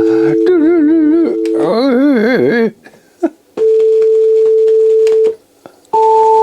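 Test tones from a signal CD played through a Denon DCM-320 CD changer: steady pure tones, for a while two together, that wobble up and down in pitch for about two seconds and then break off into silence twice. This happens while the player is jumping and losing the track.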